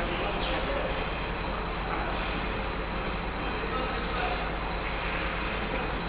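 Steady mechanical noise with a constant high-pitched whine over a low hum.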